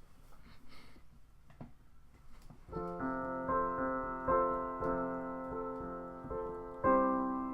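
A few faint clicks, then about three seconds in a piano begins a slow introduction in F. Sustained chords are struck one after another and ring and fade, with the strongest chord near the end.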